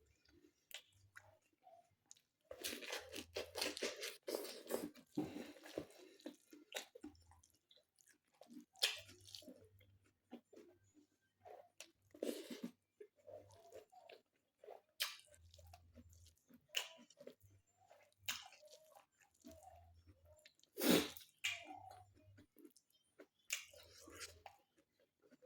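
A person chewing and crunching food close to the microphone, in irregular crunches, smacks and clicks, with one sharper crunch late on.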